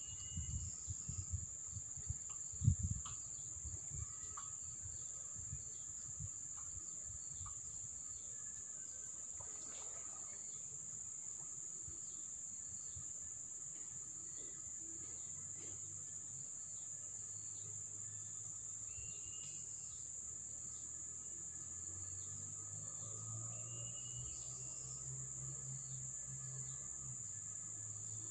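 Steady high-pitched drone of insects, with a few short chirps. A few low thumps come in the first few seconds, and a faint low hum sets in about halfway through.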